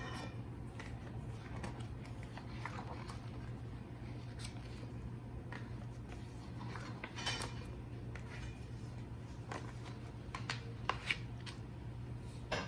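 Paper and plastic parts of a DVD box set being handled: scattered soft rustles and light clicks, a little busier about two thirds of the way through, over a steady low hum.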